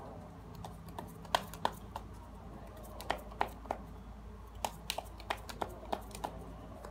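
Keyboard typing: irregular sharp key clicks in small clusters, over a low steady hum.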